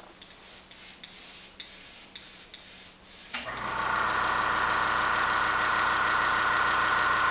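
An airbrush giving short puffs of hissing air. About three and a half seconds in, an air compressor switches on with a click and runs with a steady hum and whine, louder than the spraying.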